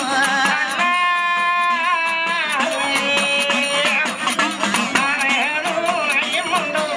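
A man singing a Tamil folk-drama song, holding long notes about a second in and bending the pitch between them, over a steady percussion beat.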